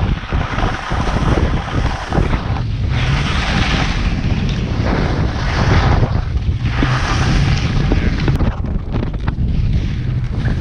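Wind blowing across a GoPro's microphone: a heavy, uneven low rumble with stretches of brighter hiss as the gusts rise and fall.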